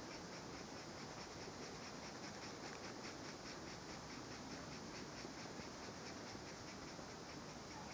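Faint, rhythmic scratching strokes on notebook paper, about three a second, over a steady hiss.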